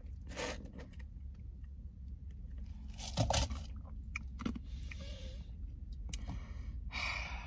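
A person chewing and crunching food close to the microphone, with a few short scrapes and clicks, over a steady low rumble inside a car.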